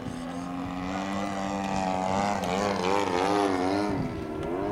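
RC model airplane flying overhead, its motor and propeller running with a steady buzzing note. From about halfway the pitch wavers up and down as it gets louder.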